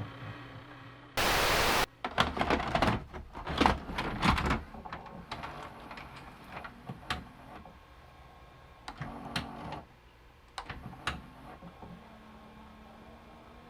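A short blast of static-like hiss, followed by a run of irregular sharp clicks, knocks and a few dull thumps that grow sparser and fade to a low background hiss.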